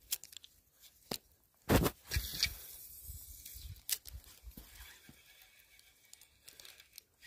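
Fishing rod and reel being handled through a cast: a few sharp clicks, a loud rush of movement a little under two seconds in, then a hiss with scattered ticks as the line goes out.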